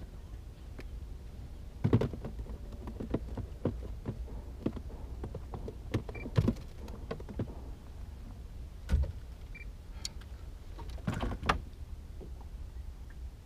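Fishing tackle being handled aboard a small boat: scattered clicks and knocks, a few louder ones spread through, over a steady low rumble.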